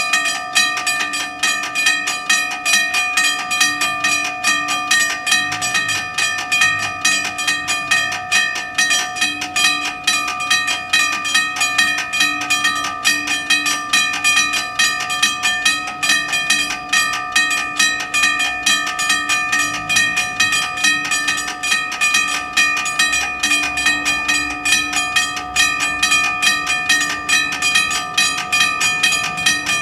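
Two electric level-crossing warning bells ringing continuously with a fast, even metallic ring, sounding while the crossing's red lights are on to warn of an approaching train.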